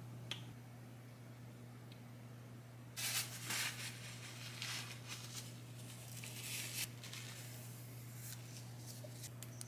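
Handling noises of a sauce squeeze bottle and a paper tissue wiping up spilt sauce: a short loud burst of rustling about three seconds in, softer rustling after, and a few small clicks near the end, over a steady low hum.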